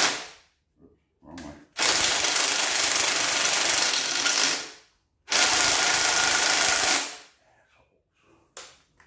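Cordless impact wrench hammering in two long runs of about three seconds and under two seconds, after a short blip about a second and a half in, as it breaks loose and backs out bolts on the front of a 5.9 Magnum V8 block.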